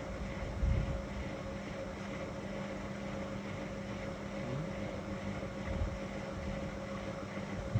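Whirlpool FSCR 10425 washing machine running with a steady motor hum and drum whir, with a soft low thump about a second in.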